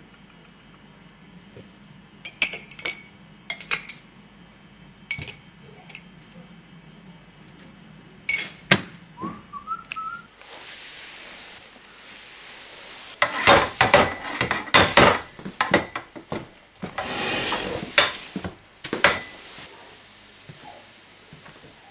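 Plates and cutlery clinking and clattering as they are handled on a table: scattered sharp clinks, then a dense run of clatter in the middle. A short rising whistle comes about ten seconds in, and a broom sweeps near the end.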